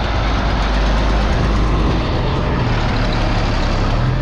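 Case IH Steiger 9350 articulated tractor's diesel engine running steadily under load as it pulls a cultivator through the soil, passing close by.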